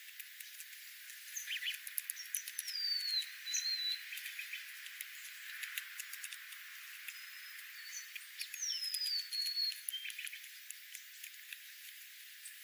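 Small wild birds calling: a whistled note sliding downward, heard twice, among short high chirps and a scatter of sharp ticks, over a light outdoor hiss.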